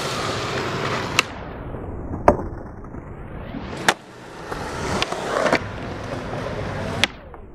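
Skateboard wheels rolling on concrete, then a sharp clack about a second in as the board meets a metal handrail and another clack about a second later as it lands. Further single clacks of the board come near the middle and near the end, with rolling that builds up between them.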